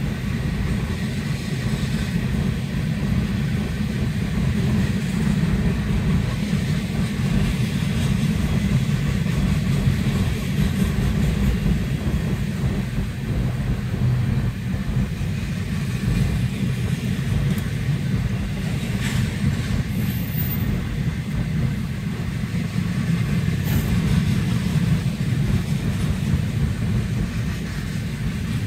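Long freight train of boxcars and container cars rolling past a level crossing, a steady low rumble of wheels on rail, heard from inside a stopped car.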